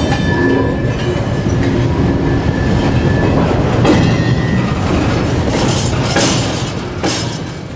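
Freight wagon wheels rolling slowly over a gap in the rails at a train-ferry ramp: a steady heavy rumble with sharp clacks each time a wheelset crosses the joint, and a faint thin wheel squeal in the first few seconds. The sound fades out near the end.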